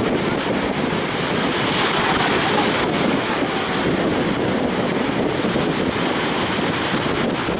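High sea surf breaking, with strong wind buffeting the microphone; a steady, loud rush that swells slightly about two seconds in.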